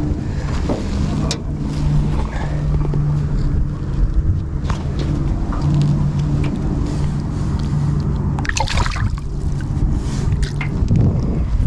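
Small boat's motor running steadily, its low hum shifting slightly in pitch now and then, over water noise and wind rumble on the microphone.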